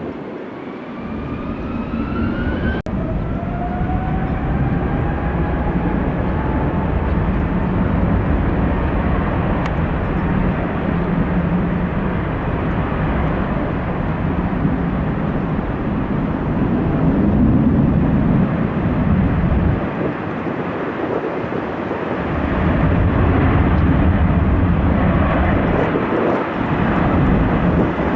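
Jet airliner's engines, the Boeing 777-300ER's GE90s, heard as a loud rumble from the passing aircraft, with a thin whine gliding in pitch over the first few seconds. The rumble swells again near the end.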